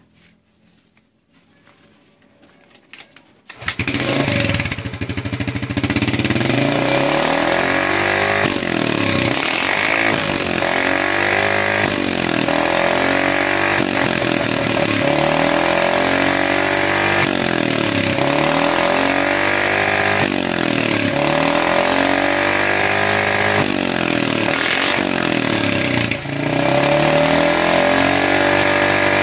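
Yamaha Mio M3 scooter's single-cylinder engine starting about three and a half seconds in, then revved in repeated throttle blips about every second and a half through a freshly fitted hollowed-out (bobokan) MP7-style exhaust.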